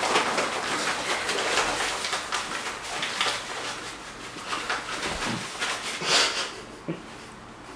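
White powder being dumped and shaken from a carton over a person's head and clothes, making a run of short hissing rustles.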